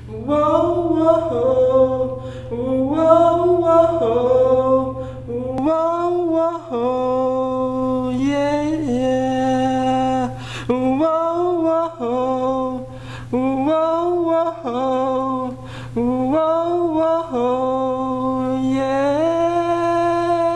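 A single voice singing a wordless melody without accompaniment, in short phrases of about a second each. It ends on one long held note near the end.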